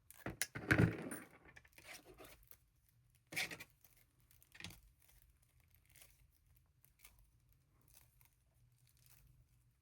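Pipe cleaners being twisted together by hand: scratchy rustling and crinkling, loudest in the first second, with two short sharp scrapes a few seconds in and fainter rustling after.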